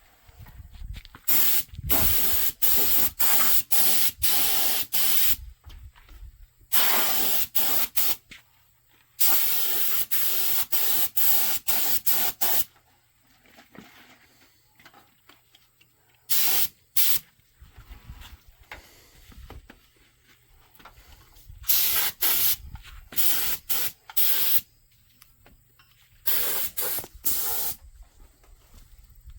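Aerosol spray can hissing in short repeated bursts, in several groups of sprays with pauses between them, as paint is sprayed onto the truck frame.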